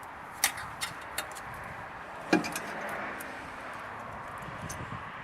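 Hands working plastic ties and hoses in an engine bay: a few sharp clicks in the first second, then a louder knock a little past two seconds, with a soft rustle after it.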